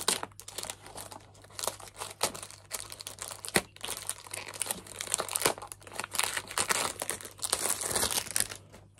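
Clear cellophane wrap being torn and peeled off a cardboard perfume box by hand, crinkling and crackling throughout, with one sharp snap about three and a half seconds in.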